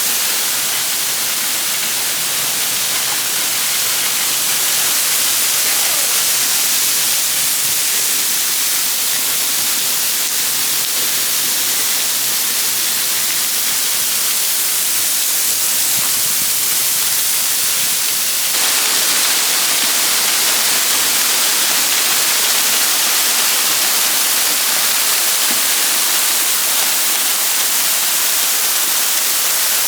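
Waterfall pouring steadily: a loud, even rush of falling water that gets a little louder about eighteen seconds in.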